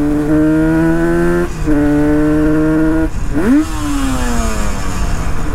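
Yamaha RD350's air-cooled two-stroke parallel-twin engine, running through an RD400 exhaust, pulling hard on the road. Its note climbs steadily, breaks briefly about one and a half seconds in as a gear is changed, and climbs again. About three seconds in it flares up sharply, then falls away slowly as the throttle is closed.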